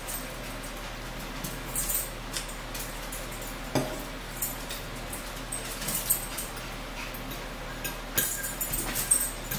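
Metal forks clinking and scraping on dinner plates, in short scattered clicks, with one louder knock about four seconds in.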